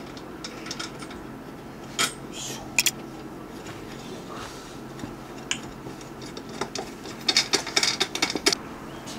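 Scattered small metallic clinks, knocks and rattles from handling a van's rooftop tent and its fittings: a few single clicks about two to three seconds in, then a denser run of rattling near the end.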